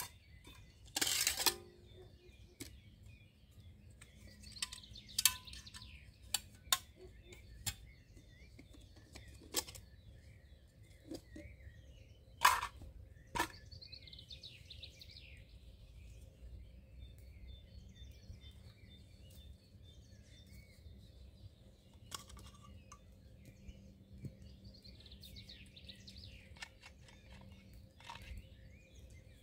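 Scattered metal clinks and knocks as the pot, cup and burner parts of a Swedish army M40 mess kit are handled and set down, most of them in the first half. Birds sing faintly throughout.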